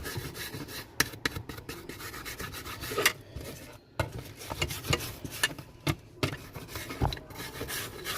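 A hand tool scraping and rubbing along the edges of a smartphone's frame, cleaning the borders where the new screen will sit, with irregular scratches and sharp little clicks.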